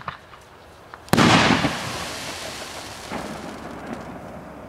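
Salute rocket's report: a few faint pops, then one sharp, very loud bang about a second in, followed by a long echoing rumble that fades slowly.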